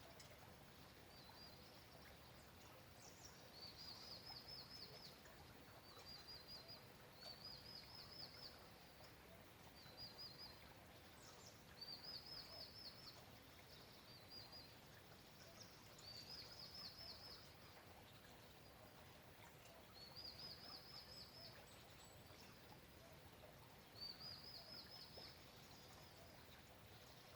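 A small bird repeating a short, high-pitched trill about every two to four seconds, each trill a quick run of pulses lasting about a second, over a faint steady hiss of rain.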